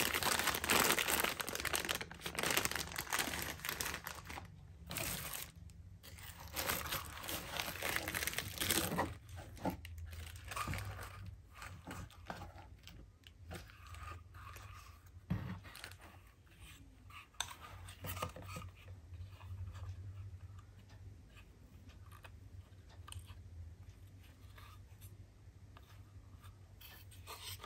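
Plastic packaging crinkling and rustling as a plastic zip bag and bubble wrap are handled and pulled from a cardboard box, dense and loud for the first nine seconds or so. After that come quieter, scattered rustles and light knocks as the plastic spinning-wheel parts are handled.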